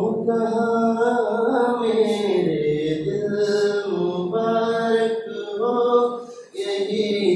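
A man singing unaccompanied, slow phrases of long held, ornamented notes with short breaths between them.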